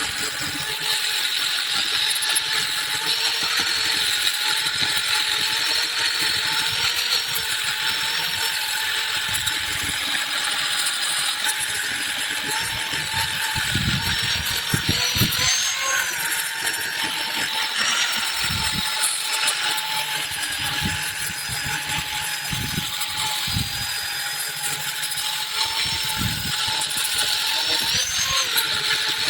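Handheld electric power tool running steadily with a constant high whine over a strong hiss. Its pitch rises briefly twice, about halfway through and near the end.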